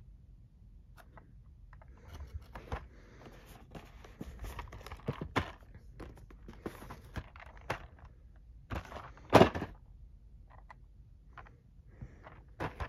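Boxed action figures in cardboard-and-plastic window boxes being handled and shifted: scattered rustling, light taps and clicks, with one louder knock about nine seconds in.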